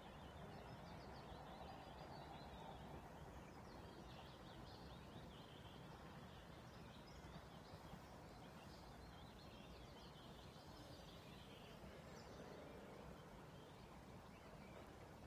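Near silence: low outdoor background noise, with small birds singing faintly on and off.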